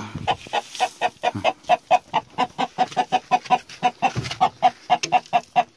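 A domestic chicken clucking in a fast, steady string of short calls, about five a second: agitated alarm clucking from birds disturbed in the coop.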